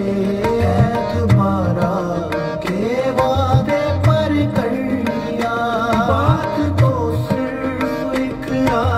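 Indian-style background music: a gliding, bending melody over regular hand-drum strokes and a steady low drone.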